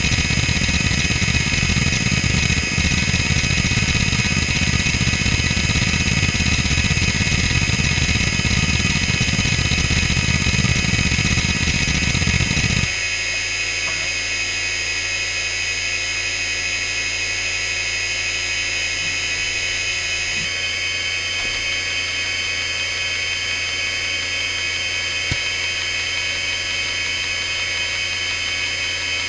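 Fujitsu M2903SGM 5400 rpm SCSI hard drive seeking rapidly and continuously, a dense rattling chatter over a steady high-pitched whine. About thirteen seconds in the seeking stops abruptly, leaving only the spindle's whine and low hum, with one click near the end; the uploader takes this periodic halt for a normal routine of the drive.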